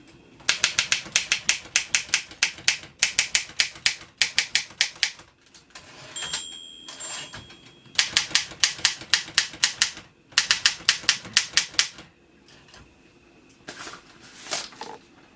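1935 Olympia Elite portable typewriter being typed on in fast runs of sharp keystrokes. Its margin bell rings once about six seconds in, and a few slower clacks near the end.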